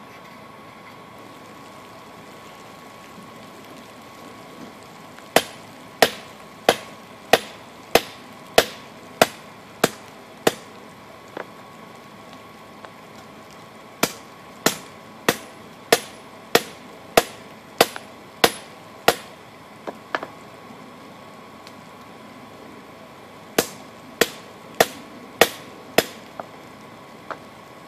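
Blacksmith's hammer striking red-hot wrench steel, forging it into a knife blank. The blows come in three runs of sharp, ringing strikes at about one and a half a second, with short pauses and a few lighter taps between runs.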